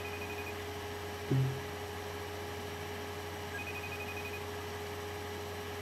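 Steady electrical hum, with a faint trilling ring tone heard twice about four seconds apart: an iPod Touch 4G's outgoing FaceTime call ringing while it waits to be answered. A short low thump comes a little over a second in.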